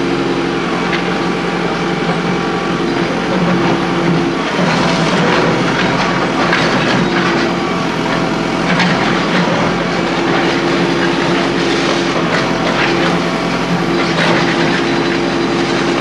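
Engine of road-repair machinery running steadily, with a spell of rattling and clattering about four seconds in.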